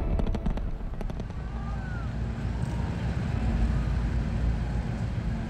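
Deep, steady rumble of the Space Launch System rocket climbing away after liftoff, heard from a distant viewing site.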